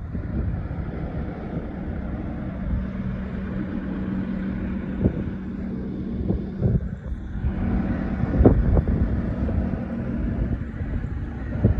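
Volvo ECR88D excavator's diesel engine idling with a steady low hum, with wind buffeting the microphone and a few sharp knocks.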